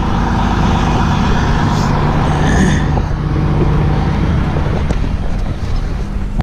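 Large farm vehicle engine running steadily with an even hum.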